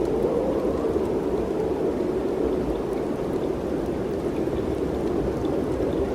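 Mountain wind rushing steadily, a dense even hiss with a low rumble beneath it and a few faint ticks.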